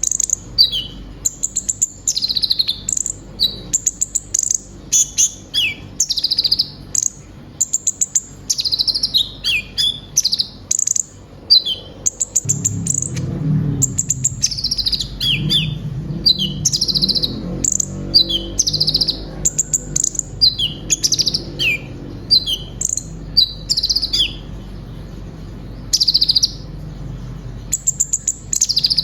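Kolibri ninja (konin) sunbird singing a long, rapid run of high chirps, trills and quick down-slurred notes, the mimicked 'isian' phrases of other birds. A low background rumble comes in about twelve seconds in.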